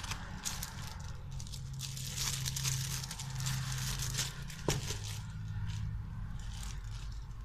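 Plastic packaging crinkling and rustling as it is handled, with many small irregular crackles, over a steady low hum.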